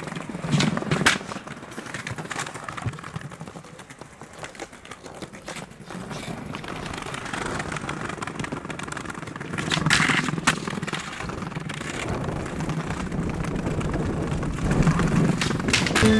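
Skateboard wheels rolling over concrete, with sharp wooden clacks of the board popping and landing: a pair about a second in and another pair around ten seconds in, the loudest ones.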